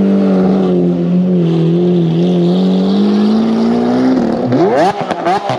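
A sports car's engine held at steady high revs for about four seconds, then let drop and revved in a string of quick rises and falls near the end.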